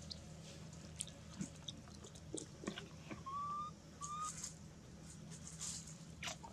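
Faint crackling and rustling of dry leaf litter with scattered small clicks, and two short whistle-like calls about a second apart midway through.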